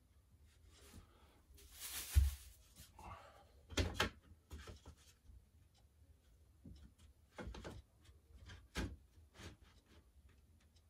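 Hand-handling sounds of fitting a wooden wall board: a rustle and a few scattered knocks and taps as the board is set against the wall and a level is laid on it, the loudest knocks about two and four seconds in.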